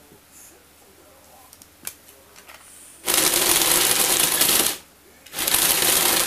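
Motorised Lego Technic crawler running on its plastic tracks, its electric motors and gears giving a loud, dense rattle on the wooden floor. It runs twice: once for under two seconds about three seconds in, then briefly again near the end.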